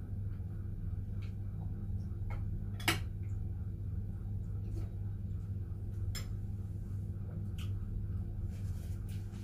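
A metal spoon clinking against a bowl several times during a meal of cereal with milk, the loudest clink about three seconds in, over a steady low hum.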